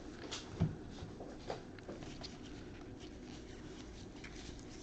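Faint handling of trading cards: cards sliding and flicking against one another as they are sorted by hand, with a few soft clicks in the first second and a half.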